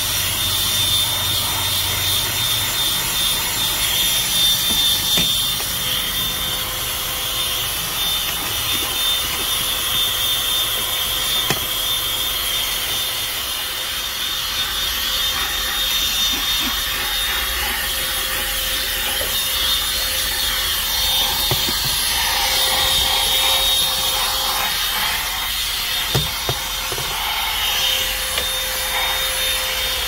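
Bullsone Power Max Ultra 12 V cigarette-lighter handheld car vacuum running steadily with a thin high whine, its nozzle rubbing and scraping over floor carpet, with a few short knocks against the trim.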